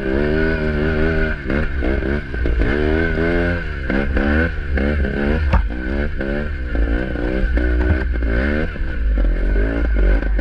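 Sherco 300 trials motorcycle engine being blipped on and off at low speed, its pitch rising and falling over and over about twice a second as the throttle is worked. A single sharp knock about five and a half seconds in.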